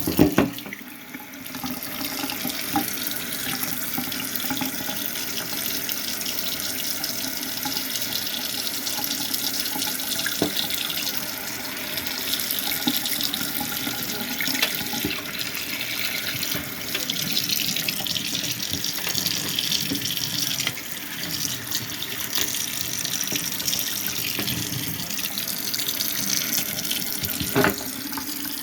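Water running steadily from a tap and splashing, melting ice, with a brief lull about a second in and a few sharp knocks, one near the end.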